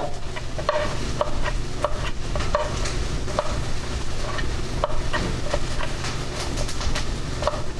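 Vegetables sizzling in coconut oil in a hot pan, a steady frying hiss left to brown without stirring. Short knife taps on a wooden cutting board come every second or so as cooked chicken is cubed.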